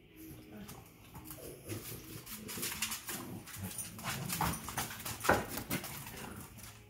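A French bulldog and a Boston terrier play-fighting: low dog vocal sounds mixed with scuffling and clicking on a hard floor. It is busiest from about two seconds in, with a sharp knock a little after five seconds.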